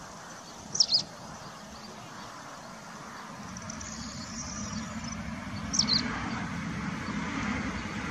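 Outdoor ambience: a bird gives short, high, falling chirps, a quick pair about a second in and another pair near six seconds. Under them is a low rumbling noise that grows louder from about three seconds in.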